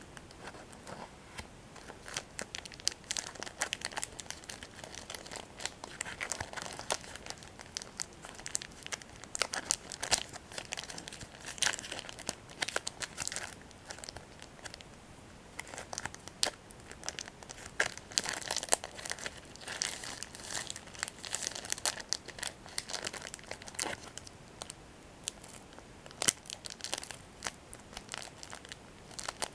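Plastic Kit Kat wrapper crinkled and squeezed between the fingers close to the microphone, in quick, irregular crackles.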